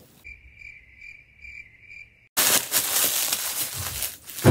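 Cricket-like chirping, a steady high trill pulsing about five times a second, which cuts off abruptly about two seconds in. Loud rustling follows.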